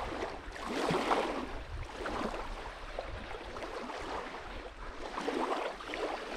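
Small waves lapping at the water's edge of a sandy shore, swelling and fading irregularly, with a low rumble of wind on the microphone.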